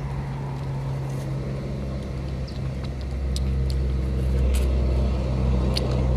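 A motor vehicle's engine running with a steady low hum that grows louder about halfway through. A few faint short high ticks sound over it.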